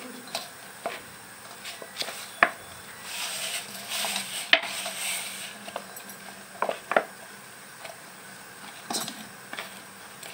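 Hands kneading wheat dough in a stainless steel bowl: soft pressing and rubbing with scattered knocks and clinks on the bowl, the sharpest about two and a half and four and a half seconds in, and a louder stretch of rubbing from about three to five seconds in.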